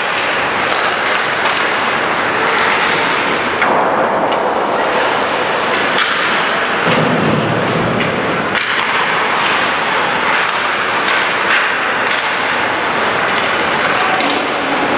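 Ice hockey play on a rink: skate blades scraping the ice, sticks clacking and the puck knocking against sticks and boards in scattered sharp hits, over a steady hiss of arena noise.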